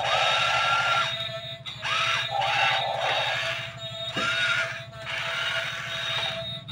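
Small electric gear motors in toy RC excavators whining in short bursts of about a second as the boom and bucket move, each whine sliding up in pitch as it starts; about five such bursts. Background music runs underneath.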